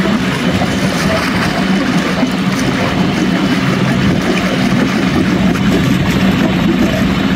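A sailboat's diesel engine running steadily while motoring, with the rush of wind and water.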